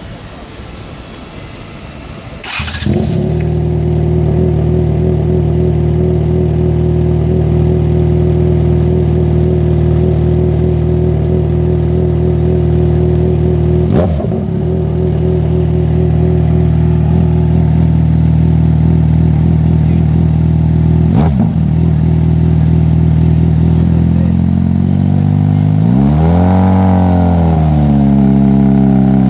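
Yamaha XJ6's 600 cc inline-four with an aftermarket Power exhaust, started about two and a half seconds in and then idling steadily with a deep, full-bodied exhaust note. Near the end it is revved once, the pitch rising and falling back over about three seconds. Two short sharp clicks come through in the middle.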